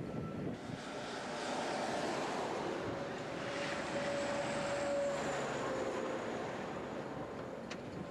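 Heavy articulated truck driving past on the motorway: its diesel engine and tyres build to a peak about four to five seconds in, then fade as it pulls away.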